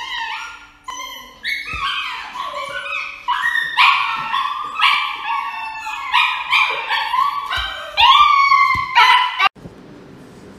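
A dog yelping and howling in a rapid string of high, wavering cries, a distressed protest as it is held for an injection at the vet. The cries cut off suddenly about a second before the end.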